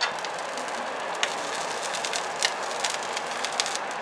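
Thin pancake batter sizzling in a hot frying pan, a steady hiss broken by a few sharp clicks.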